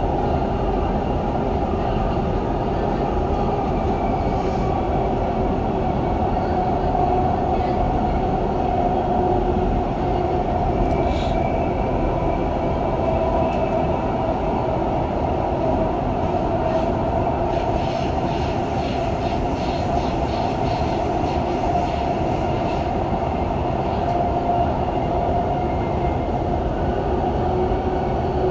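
Dubai Metro train running between stations, heard from inside the carriage: a steady rumble with a droning tone. Roughly two-thirds of the way through, a faint high-pitched squeal and a run of light clicks come in for several seconds.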